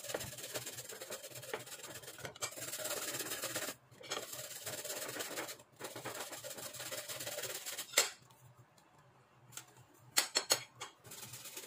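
Fresh ginger root being grated on the fine side of a stainless steel grater: a steady rasping scrape, broken by two short pauses. About eight seconds in the grating stops with a sharp click, and a few short knocks follow near the end.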